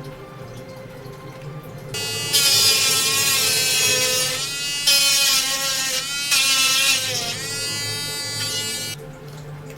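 Portable mini USB electric drill running with a high-pitched whine. It starts about two seconds in, its pitch dips and recovers twice, and it switches off shortly before the end.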